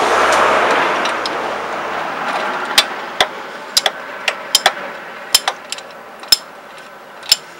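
A passing vehicle's noise swells and fades over the first few seconds. From about three seconds in come sharp, irregular metallic clicks and knocks of a socket wrench working the exhaust header bolts.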